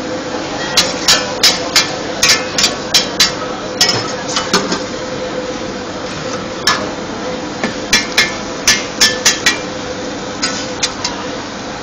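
A metal spatula clanking against an iron wok as fried oyster omelette is cooked: two runs of sharp metallic strikes, about three a second, over a steady background hum.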